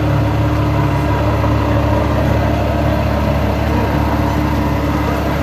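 Ferrari FF's 6.3-litre V12 idling steadily with an even exhaust note.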